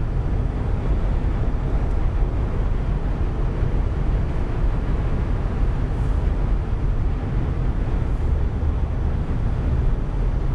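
Steady road noise inside a car's cabin at freeway speed: an even low rumble of tyres and engine.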